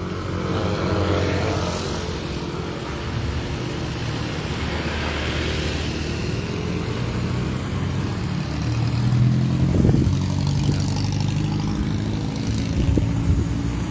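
Road traffic passing close by: cars and motorbikes driving past one after another, with louder pass-bys about a second in and again around nine to ten seconds in.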